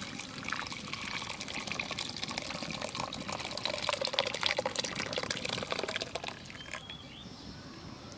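Milk split with lemon juice poured from a pot into a muslin cloth to strain it: the whey splashes and trickles through the cloth while the chhena curds collect. The pouring stops about six seconds in.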